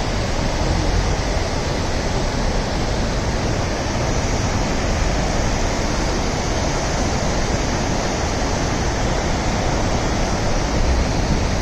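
Steady rushing roar of a rain-swollen mountain stream pouring over a roadside weir and flowing across the road.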